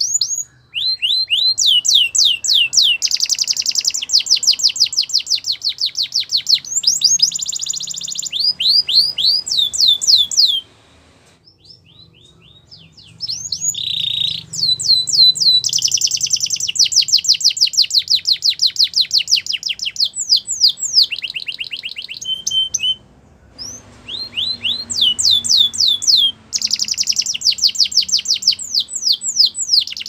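Canary singing: long, fast trills of repeated downward-sweeping high notes, broken twice by short pauses.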